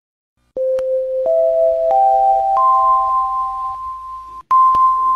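Electronic school dismissal-bell chime: four ringing notes climbing a major arpeggio, then after a brief break starting back down from the top note.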